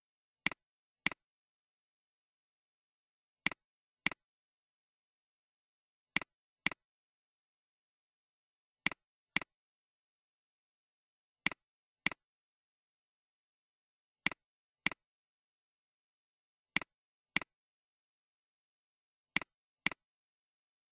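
Computer mouse clicks in pairs about half a second apart, a pair every two and a half to three seconds, eight pairs in all.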